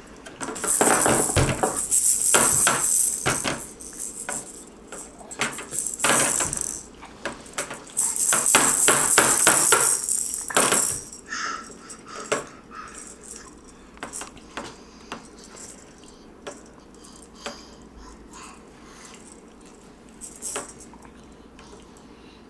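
A baby shaking and banging a small hard object on the table, making jingly clattering. It comes in bursts: one from about half a second in to three and a half seconds, a short one around six seconds, and a longer one from about eight to eleven seconds. After that come scattered light taps and clicks.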